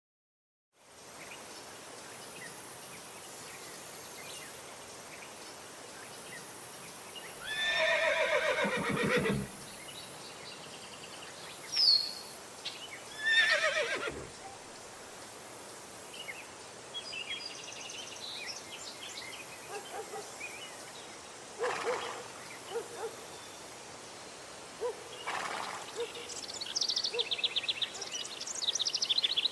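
Outdoor countryside ambience starts up after a second of silence: a steady high insect hiss, scattered bird chirps, and a fast bird trill near the end. Twice, a large animal gives a long call that falls in pitch, like a horse whinnying.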